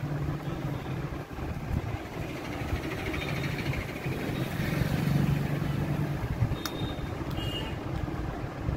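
Steady low background rumble with a faint hum, and a few light clicks about two thirds of the way through.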